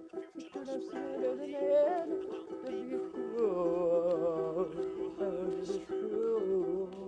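Acoustic guitar strummed steadily, with a man's voice carrying a wavering, wordless melody over the chords.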